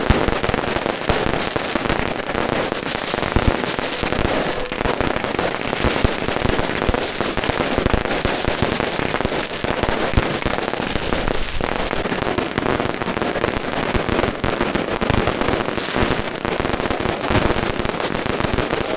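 A dense, unbroken barrage of firecrackers going off, hundreds of cracks running together into a continuous rattle.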